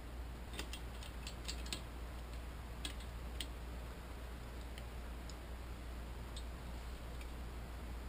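Small metallic clicks and taps from a Yamaha 90 two-stroke outboard's crankshaft and its bearings being handled and seated in the block: a quick cluster in the first two seconds, then a few scattered ones. A steady low hum runs underneath.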